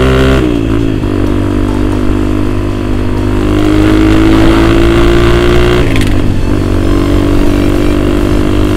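Motorcycle engine heard from the rider's seat while riding, its pitch climbing slowly for about six seconds, then dropping briefly and holding steady.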